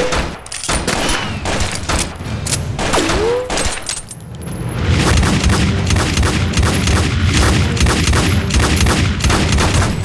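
Dubbed pistol gunshot sound effects: a few scattered shots, then from about five seconds in a rapid, unbroken volley of shots.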